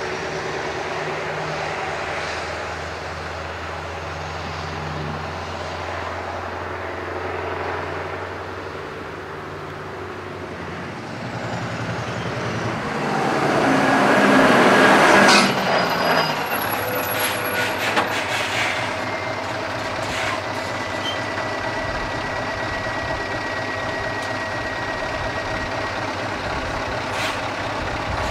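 Scania R620's straight-piped V8 diesel running, swelling to its loudest about halfway with a short burst of air hiss, then settling back to a steady run.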